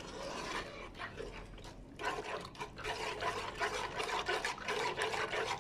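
Metal slotted spoon stirring a thin mixture of powdered milk, starch and water in a nonstick pan to dissolve it: wet sloshing with small scrapes and clicks of the spoon against the pan, getting busier about two seconds in.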